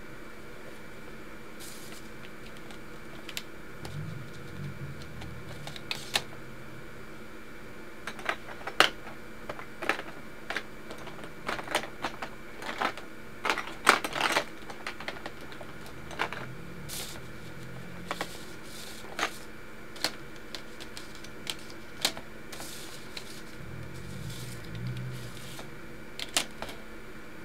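Scattered sharp clicks and light knocks of small hard objects being handled, coming irregularly and thickest about a third of the way through, with a few soft low thumps, over a steady faint hum.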